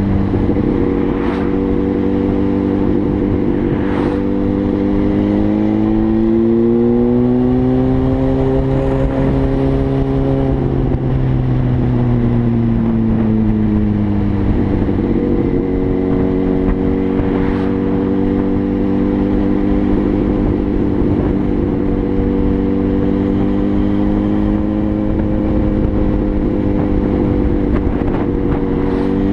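An engine running steadily throughout, its pitch rising slowly for a few seconds partway through and then sinking back.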